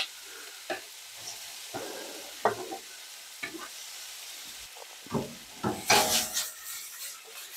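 Diced shallot, celery and red bell pepper scraped off a cutting board with a knife into a stainless steel sauté pan of hot butter, sizzling faintly under scattered scrapes and taps of the knife and board. About six seconds in there is a louder rush of sizzling and scraping as the pan is moved on the burner.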